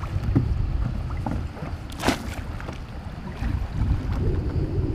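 Wind buffeting the microphone with a low rumble, and water sloshing around a person wading beside a paddleboard, with one short splash about two seconds in.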